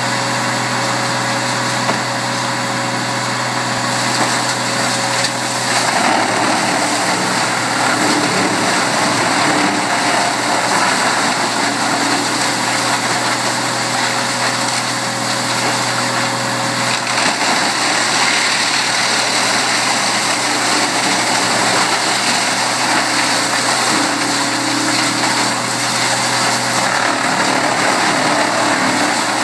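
1996 Biogrind/CMI 175 horizontal grinder running on its diesel engine, a steady engine drone. About six seconds in the sound grows louder and rougher with a broad rushing noise as the grinder starts working material and throwing dust.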